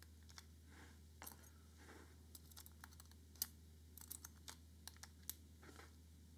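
Faint, scattered light clicks and taps of small metal drill-gearbox parts being handled and set down, the clearest about halfway through.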